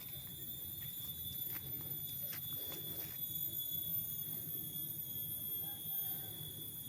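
Steady high-pitched insect chorus made of several constant tones held throughout. Underneath there is a low rumble, with a few faint footstep clicks in the first half.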